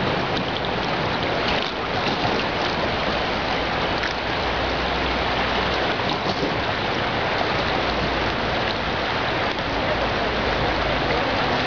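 The Merrimack River in flood, its fast brown water rushing steadily past, a continuous even hiss of moving water.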